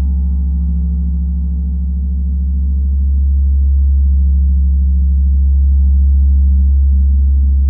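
A gong sounding a deep, steady low hum with fainter, shimmering overtones above it, swelling slowly in the middle.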